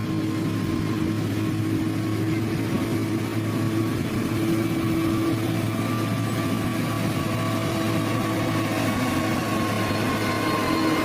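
Heavy construction-machine diesel engine running steadily at constant speed, with a continuous hum and a faint whine above it.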